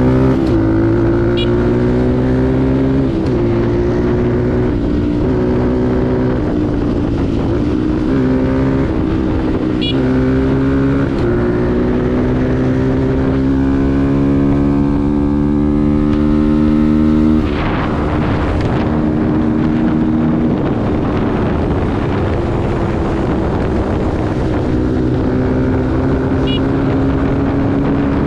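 Kuba Black Cat motorcycle engine running under way, heard from the rider's seat. Its note climbs slowly and drops back at each gear change. About two-thirds of the way through, the note falls sharply under a brief rush of noise, then holds steadier.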